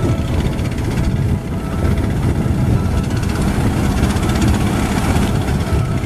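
Engine of a traditional wooden fishing boat running steadily under way, a continuous low, rapidly pulsing engine sound.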